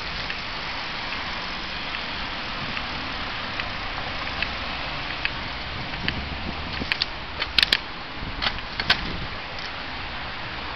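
Steady wind and road noise from riding a bicycle along a city street. A cluster of sharp clicks and rattles comes about seven to nine seconds in.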